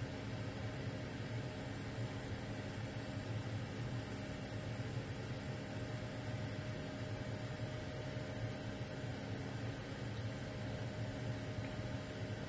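Steady whirring hum of an inline extraction fan drawing air through a flexible hose from a LaserPecker 4 laser engraver while it engraves.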